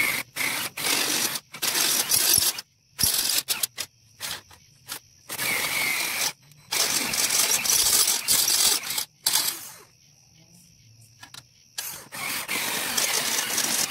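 Cordless drill boring holes through a metal bumper bar, the bit grinding into the metal in stop-start bursts: short bursts at first, then longer runs of a few seconds, with a quieter pause about ten seconds in.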